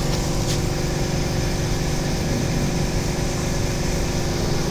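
Steady machine hum with a low drone and several steady tones, from a running laser welding and cutting machine setup. A couple of faint ticks come about half a second in.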